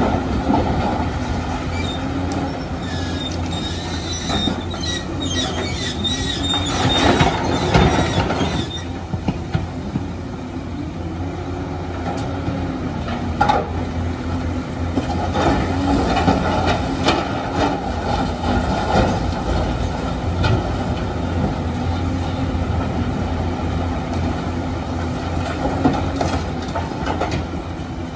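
Volvo crawler excavator's diesel engine running steadily under load while its bucket digs into broken rock. Rock clatters and scrapes against the steel bucket, with a high squeal from about 3 to 8 seconds in and scattered knocks later on.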